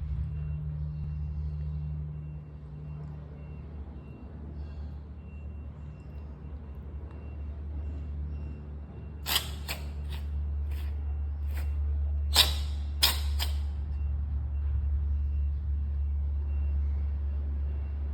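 A cat sneezing in a bout: some eight short, sharp sneezes in quick succession, starting about halfway through, over a steady low hum. The sneezing comes from upper respiratory congestion linked to feline asthma, set off by ear solution massaged into her ear.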